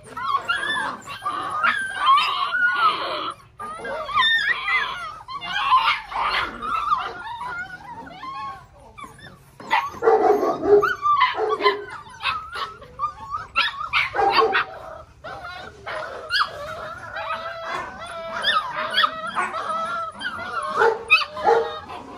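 A litter of six-week-old Belgian Malinois puppies barking and whining in a busy overlapping chorus of high, short calls, broken by a few brief lulls.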